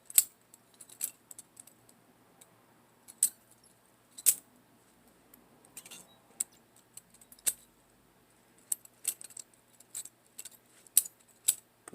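Balisong comb being flipped slowly by hand, its handles and pivots giving sharp metallic clicks and clacks at irregular intervals, about a dozen over the stretch.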